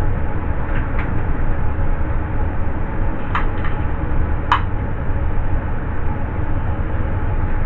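A steady low rumble of background noise, with a few short light clicks and taps: screws and a nut driver against a metal computer case as a power supply is screwed in.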